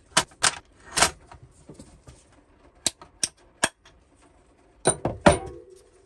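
Metal clinks and knocks of hand tools against the aluminium blower-motor housing of a Chinese diesel heater as the old motor bearings are worked out. About eight sharp clinks come in small clusters, and one a little over five seconds in leaves a brief metallic ring.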